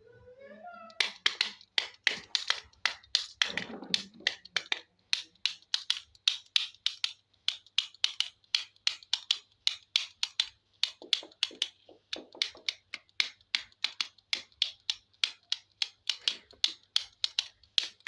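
A brief rising, meow-like squeal, then a long run of sharp hard clicks, about three a second.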